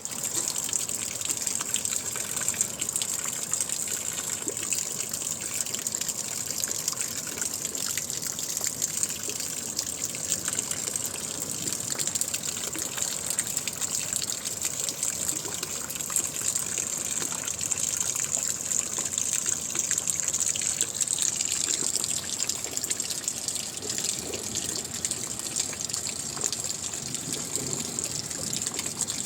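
Heavy rain falling steadily: a dense, even hiss with many fine drop ticks.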